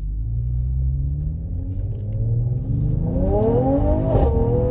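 The 2020 Mercedes-AMG GT53's turbocharged inline-six, heard inside the cabin, rumbling steadily and then accelerating hard with a rising engine note over the last couple of seconds. A short crackle cuts in near the end.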